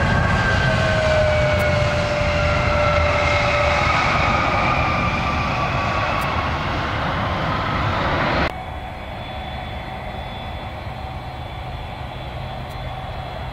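Jet airliner passing close with its engine whine sliding slowly down in pitch. About eight seconds in the sound cuts abruptly to a quieter, steady jet engine hum.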